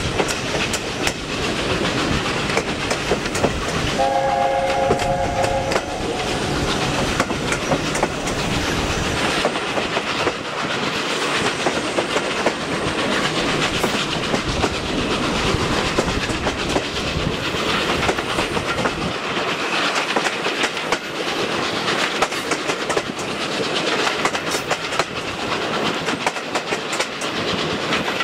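Steam-hauled train running over jointed track, a steady clickety-clack of wheels on rail joints. About four seconds in, the A4 Pacific's three-note chime whistle sounds for about two seconds.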